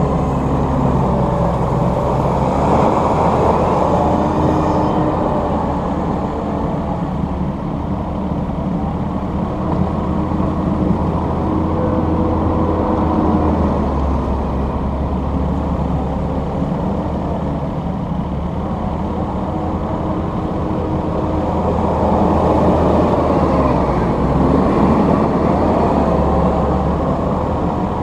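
Kubota SVL90-2 compact track loader working dirt: its diesel engine runs steadily and rises and falls in pitch as it drives back and forth pushing soil, over a constant low diesel hum.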